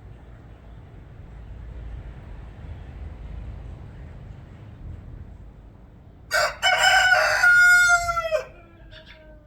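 A rooster crowing once, about six seconds in: a short first note, then a drawn-out call of about two seconds, its pitch falling away at the end. Before it there is only a faint low rumble.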